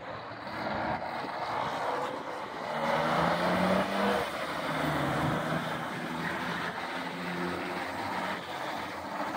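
Detroit Diesel 6V-92 two-stroke V6 diesel in a 1977 Ford L9000 tractor, pulling away under load. The engine note climbs, dips a little about four seconds in as it shifts gear, and climbs again.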